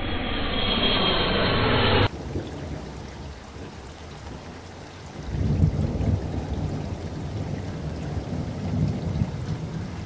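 Rushing water of a waterfall and river rapids in a rocky gorge, a steady dense roar that changes abruptly about two seconds in. From about five seconds in, wind gusts buffet the microphone with a low rumble.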